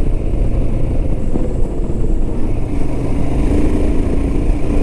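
Royal Enfield Himalayan's single-cylinder engine running as the motorcycle is ridden along at a steady pace, under a continuous low rumble; the engine note comes through a little more clearly about three seconds in.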